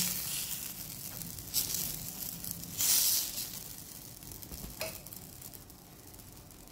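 Cheela batter sizzling on a hot, oil-greased iron tawa, with two brief louder bursts of sizzle in the first half as a ladle spreads it. The sizzle dies down gradually after that.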